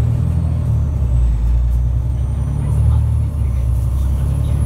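Alexander Dennis Enviro500 MMC double-deck bus heard from inside while under way: a steady low engine and drivetrain rumble, with a faint high whine rising about two seconds in.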